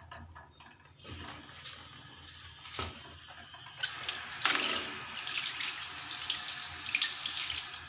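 Water running and splashing, louder from about four seconds in, with a few light knocks.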